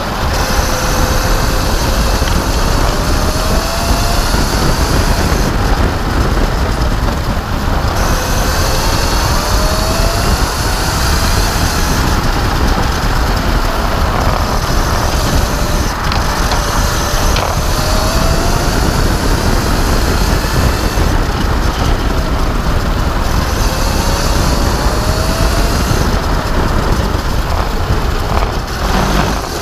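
Electric racing kart at speed, its drive whine rising and falling in pitch several times as the kart speeds up and slows through the corners, over a steady rush of wind and tyre noise.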